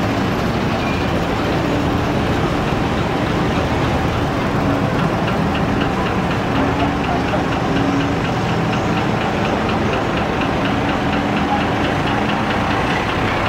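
Engines of vintage military vehicles running at walking pace: first a small jeep-type army vehicle, then a Scammell Pioneer six-wheeled army truck's diesel engine running slowly. From about five seconds in there is a fast, regular ticking.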